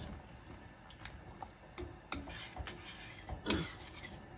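Metal ladle clinking against a stainless steel saucepan as soupy curry is stirred: a few irregular light clinks, the loudest about three and a half seconds in.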